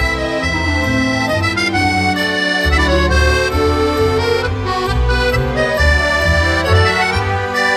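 Background music led by an accordion, with a steady bass line underneath.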